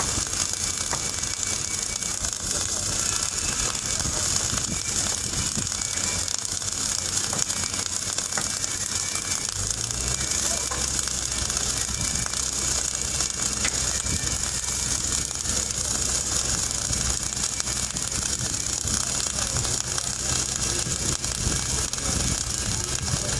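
Steady crackling hiss typical of arc welding. About ten seconds in, a low machine hum starts underneath and keeps running.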